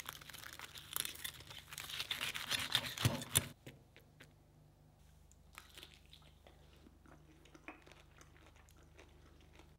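Knife sawing through the crisp breaded crust of a whole deep-fried chicken: a dense crackling crunch that stops about three and a half seconds in. After that, only quieter scattered crunches of the crust being chewed.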